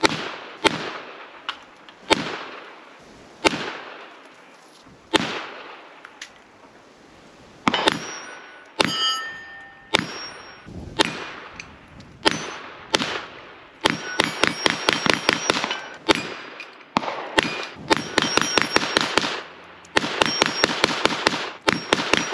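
Kel-Tec CMR-30 .22 Magnum semi-automatic rifle firing at steel targets. It fires single shots about a second to a second and a half apart, then from about fourteen seconds in, quick strings of rapid shots. Hit steel plates ring out with a metallic clang and ding after some shots.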